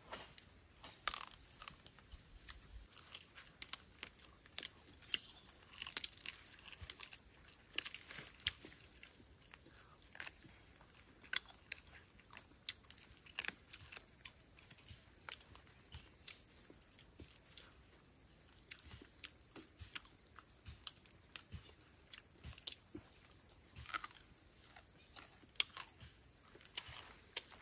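Irregular soft crunches and clicks, several a second at times, over a steady high insect drone.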